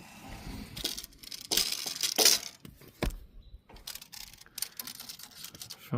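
Metal tape measure being pulled out and handled against the sawmill's wheels: rattling and clinking, with a longer rattle about one and a half to two and a half seconds in and a sharp click about three seconds in.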